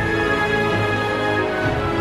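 Background music: instrumental notes held and changing every half second or so, at a steady level.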